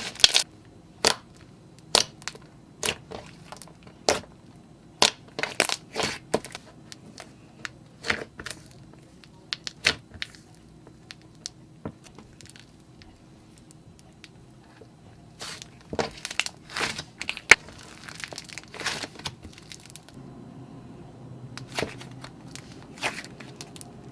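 Slime being squeezed and pressed by hand, giving irregular sharp pops and crackles in clusters, with a few quiet pauses between.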